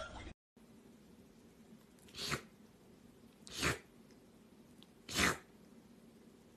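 Three short, breathy kitten sneezes about a second and a half apart.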